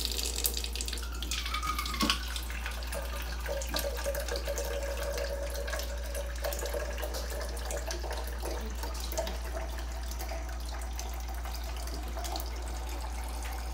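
A thin stream of water from a Kangen water ionizer's spout runs into a plastic cup held in a stainless steel sink. The pitch rises slowly as the cup fills, and there is a click about two seconds in.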